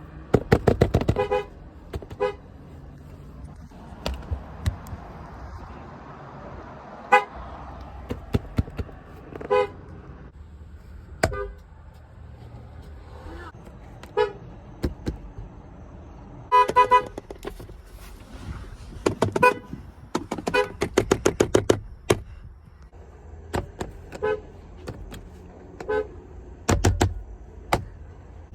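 Car horns of several different American cars honked one after another: many short blasts, some single and some in quick runs of several taps, with brief pauses between them.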